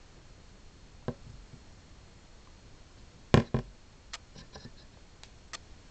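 Handling knocks and clicks as a fluorescent tube is held against a foil-wrapped bucket: one sharp click about a second in, a loud double knock about three and a half seconds in, then several small scattered clicks.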